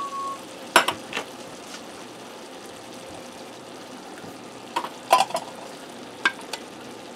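A wooden spoon scraping tomato sauce out of a tin can into a pan, with a few sharp knocks of the spoon against the can about a second in and again near the end, over a faint steady hiss.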